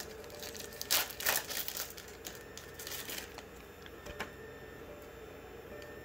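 Wrapper of a Polaroid 600 film pack being torn open and crinkled, in crackly bursts about a second in, again between two and three seconds in, and once near four seconds. Air conditioning hums steadily underneath.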